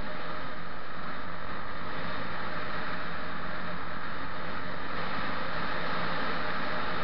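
Steady rushing of wind and road noise during a ride along a rough asphalt road, even in level throughout.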